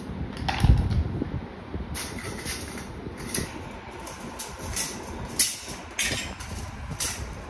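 Stainless steel dish rack frame clinking and rattling as its rails and shelves are handled and fitted together, with a heavier thump about a second in.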